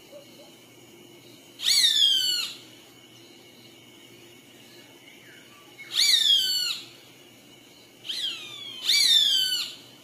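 Roadside hawk calling: three long calls, each falling in pitch, about two, six and nine seconds in, with a shorter call just before the last.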